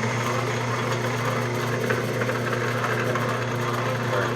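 South Bend Heavy 10 metal lathe running under power, a steady mechanical hum made of a low drone with several higher steady tones above it.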